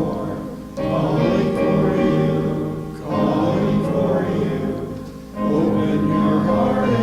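A congregation singing a hymn together, in sustained phrases that break for breath roughly every two to three seconds.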